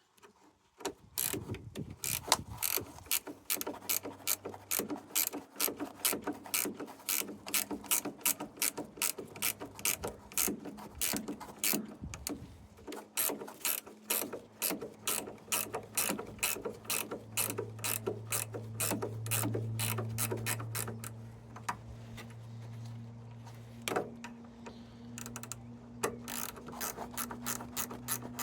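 Ratchet wrench clicking in a steady run of about three clicks a second, with a couple of short pauses, as a 10mm bolt is wound out.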